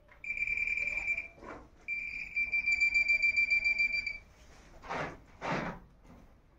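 High-pitched, rapidly pulsing beep from a handheld metal-detecting pinpointer held against the rubble, sounding twice with a short break, as it signals metal close to its tip. Two short scrapes follow near the end.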